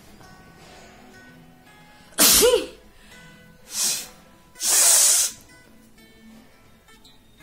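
A woman sneezing forcefully three times: the first sneeze, about two seconds in, is voiced with a falling pitch, the second is short, and the third is the longest and breathiest.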